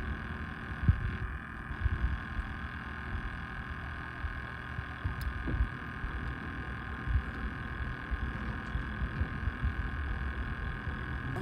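Steady hum of a boat motor, a few even tones held throughout, under an uneven low rumble of wind on the microphone.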